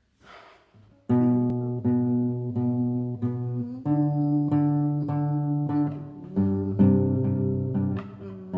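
Guitar playing a song's instrumental intro: chords struck at a steady pace, roughly one every 0.7 seconds, starting about a second in and changing chord twice.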